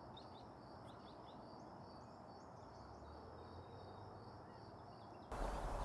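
Outdoor ambience of crickets chirping in a steady pulsing rhythm, about three chirps a second, with a few short bird chirps over faint background noise. About five seconds in it cuts abruptly to a louder, noisier background.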